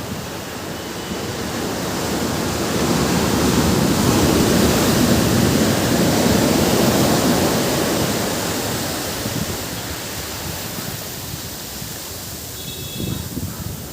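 Sea waves on a beach: one wave swells up over a couple of seconds, washes in and slowly fades back into the steady hiss of the surf.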